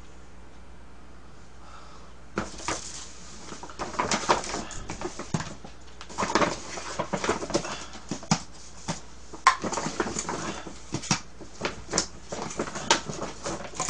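Paper takeout bag rustling and plastic food containers and cups knocking onto a table as takeout food is unpacked, starting a couple of seconds in with many short clacks and rustles.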